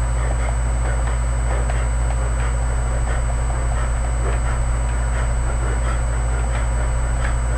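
Steady low electrical hum and a thin constant high whine from a webcam microphone, over soft repeated thuds of feet landing during high knees, about one or two a second.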